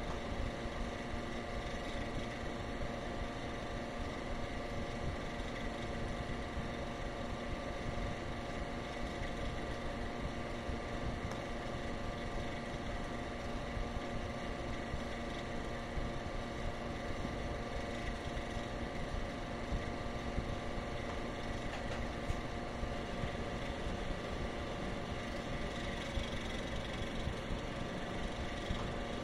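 Steady engine hum: several unchanging tones over a low rumble, with no rise or fall in pitch.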